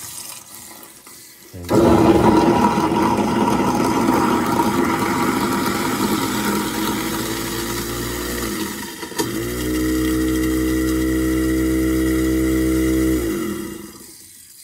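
InSinkErator garbage disposal switched on with tap water running into it, flushing debris off its grinding blades. The motor starts suddenly about two seconds in and churns noisily through the water and the last of the ice, settles after about halfway into a steady hum, and near the end winds down with falling pitch as it is switched off.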